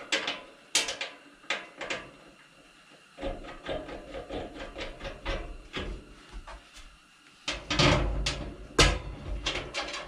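Metal clicks, taps and rattles of a kerosene heater's sheet-metal parts being handled as the heater is reassembled and its fasteners tightened. The clatter gets louder near the end, with one sharp knock.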